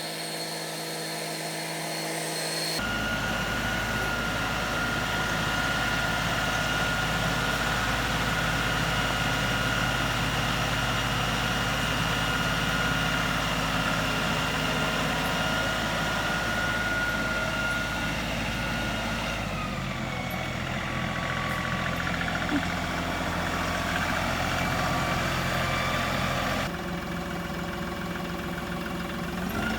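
LS XR3135 compact tractor's diesel engine running steadily. Its sound shifts abruptly about three seconds in, and again about two-thirds and nine-tenths of the way through.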